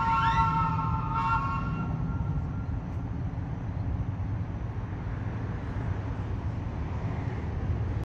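Trolley whistle: a chord of three steady tones for about the first two seconds, with a quick rising whistle sweep over it. After that comes a low steady rumble as the streetcar pulls away.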